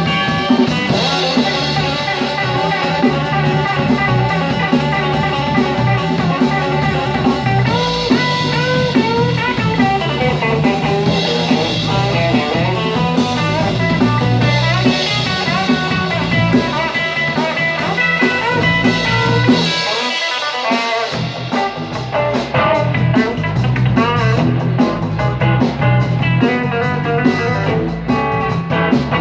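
Live blues-rock band: Telecaster-style electric guitar played with bending notes over drum kit and bass. About two-thirds of the way through, the low end drops out for about a second, then the full band comes back in.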